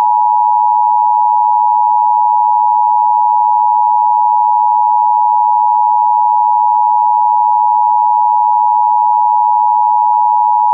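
Emergency Alert System attention signal: the loud, steady two-tone alarm, two pure tones sounding together without a break.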